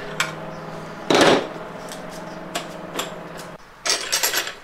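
Metal clicks and knocks from a screw-type clutch spring compressor being worked on an automatic transmission clutch hub. The loudest knock comes about a second in, with a quick run of clinks near the end. A steady hum underneath stops about three and a half seconds in.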